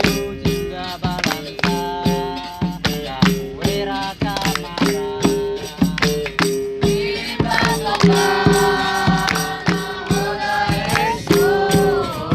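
Capoeira music: group singing over a steady rhythm of percussion with a jingling tambourine, the singing strongest in the second half.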